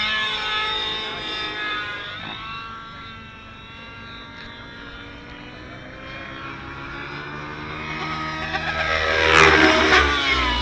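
Nitro RC helicopter's glow engine and rotor blades running at high speed during aerobatic flight. The pitch drops as it passes just after the start, then the sound fades as it flies farther out. It grows loud again near the end with the pitch sweeping up and down as it swoops back close.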